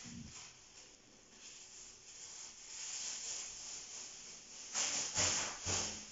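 Plastic wrapping on a LOL Surprise toy ball rustling and crinkling as it is peeled off by hand, with three louder crinkles about five seconds in.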